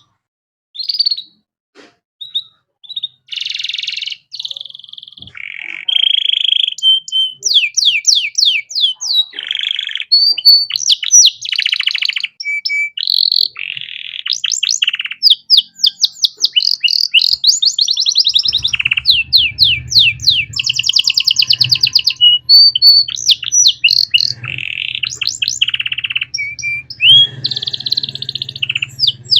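Male domestic canary singing a long, varied song of rapid trills and rolls with short breaks. A faint low hum comes in about two-thirds of the way through.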